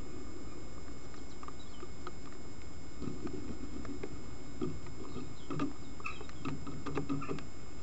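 Steady low hiss from a trail camera's microphone, with faint scattered clicks and ticks that come more often from about three seconds in.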